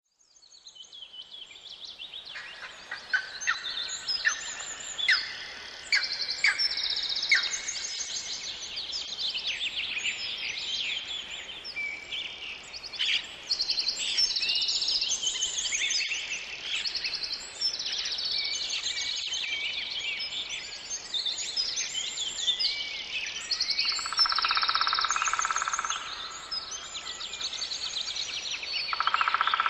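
Dawn-chorus-style forest birdsong: many songbirds singing and calling over one another in quick, varied phrases, fading in over the first couple of seconds. A lower, steadier sound joins twice in the second half.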